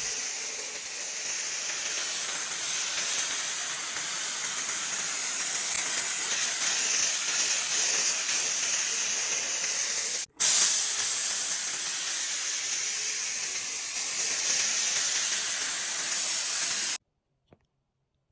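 Kärcher SC1 EasyFix handheld steam cleaner blasting steam in a steady, loud hiss. It breaks off for a moment about ten seconds in, then stops abruptly near the end.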